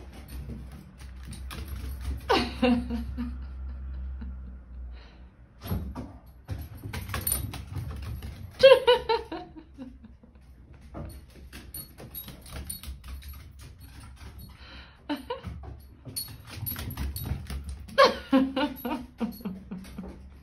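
A dog vocalising out of sight: three drawn-out calls, each falling in pitch, a few seconds apart. Scattered light clicks and scuffles come between them.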